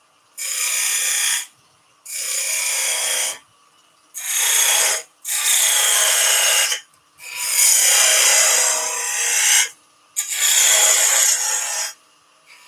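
Small bowl gouge cutting a cove into a wooden blank spinning on a wood lathe: a hissing, scraping cut in six passes of a second or two each, with brief pauses between them where the tool is lifted off the wood.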